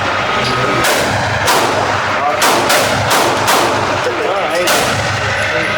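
Gunshots fired one at a time, several in a row, roughly a second apart, each a sharp crack with a short echo.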